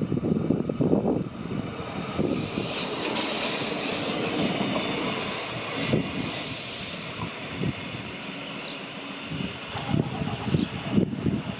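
A Thurbo Stadler Rail electric regional train running past, with a loud high hiss from its wheels and running gear between about two and seven seconds in, then fading as it moves away.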